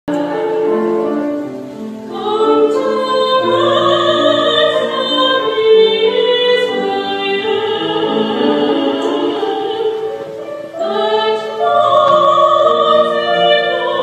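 A choir singing a slow piece in long held notes, several voices sounding together. The singing breaks off briefly about two seconds in and again near eleven seconds.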